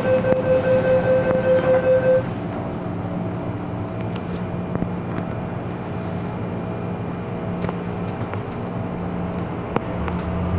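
MTR M-Train door-closing warning: rapid beeping, about four beeps a second, that stops about two seconds in as the doors shut. The train then hums steadily as it starts to pull out of the station.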